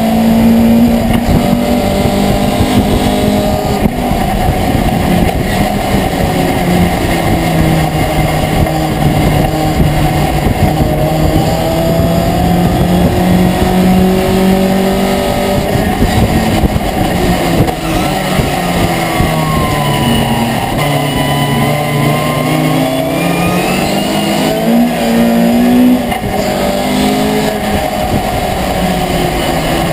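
In-cabin sound of a racing pickup truck's engine at race speed. The revs keep rising and falling, with a sharp drop near the end.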